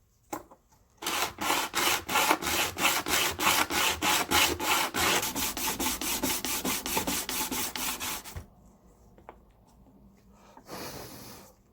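A mandolin floating bridge's foot sanded back and forth on sandpaper laid on the instrument's top, in quick even strokes of about four a second for some seven seconds, then one short pass near the end. The sanding brings the wedge-shaped foot flat so it sits flush on the top.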